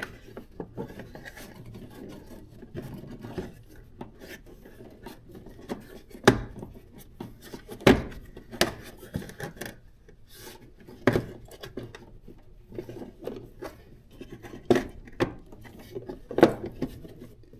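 Rubbing and scraping handling noises with scattered clicks and several sharper knocks, as wires and parts in a truck's engine bay are handled.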